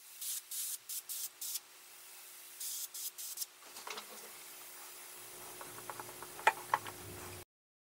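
Airbrush spraying in a string of short hissing bursts while a signature is sprayed, then a fainter steady hiss. About six and a half seconds in, a few sharp clicks as the airbrush is set into its metal holder, over a faint steady hum.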